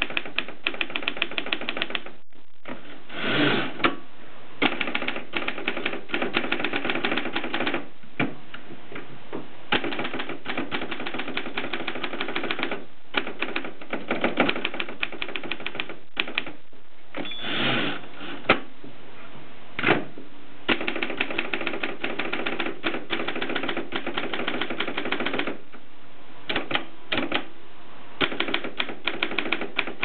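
Antique Mercedes Prima manual typewriter being typed on: quick runs of clacking key strikes broken by short pauses. There is a longer, smoother sound about three seconds in and another near the middle, and a couple of single louder strikes just after the middle.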